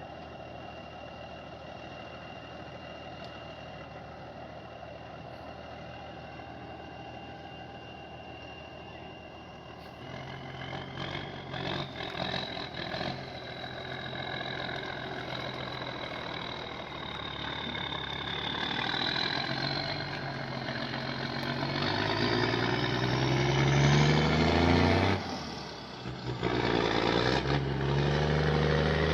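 Heavy machine engine running steadily, then working harder from about ten seconds in, with a high whine that rises in pitch and grows louder. It dips briefly near the end before running loud again.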